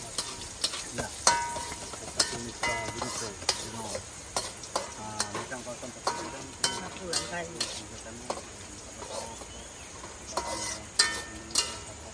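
Metal spatula scraping and tapping irregularly against a wok, some strokes ringing briefly, over a steady sizzle of shallots, garlic and dried anchovies stir-frying in oil.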